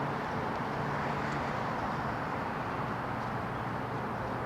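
Steady city road-traffic noise, an even wash of passing vehicles with a faint low engine hum underneath.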